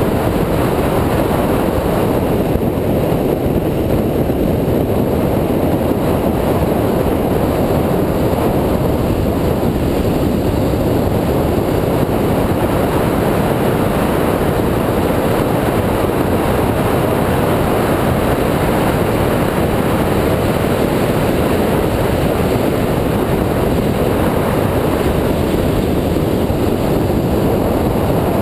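2004 Mini Cooper S, with its supercharged 1.6-litre four-cylinder, driven at speed: a steady rush of engine, tyre and wind noise, with wind buffeting the microphone.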